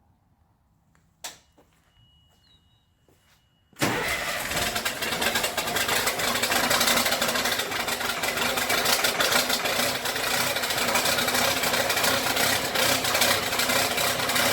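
LMTV military truck's diesel engine starting about four seconds in, then running steadily and loud. Before it, a single click and a short steady beep.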